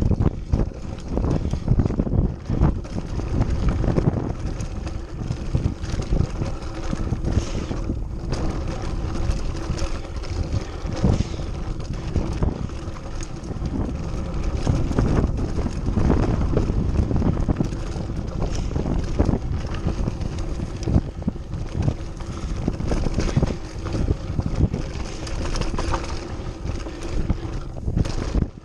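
Wind buffeting the microphone over the rumble of a mountain bike's tyres rolling on a dry dirt singletrack, with frequent knocks and rattles as the bike goes over bumps.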